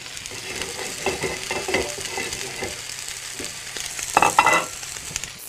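Sirloin steaks searing in a very hot pan of olive oil: a steady sizzle that swells briefly about four seconds in.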